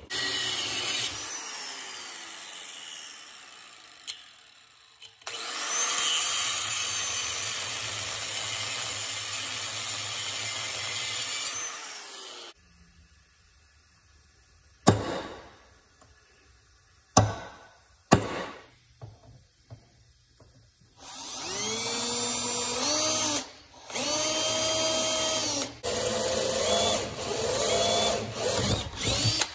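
A power tool runs twice for several seconds, the first time slowly winding down; then a few sharp hammer taps on a punch set against a brass sleeve on the steel vise handle. Then a cordless drill drills into the brass sleeve in three bursts, its whine rising and falling as it speeds up and slows.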